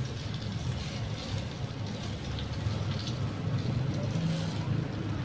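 Sausages frying in hot melted butter in an electric grill pan, a steady sizzle over a low steady hum.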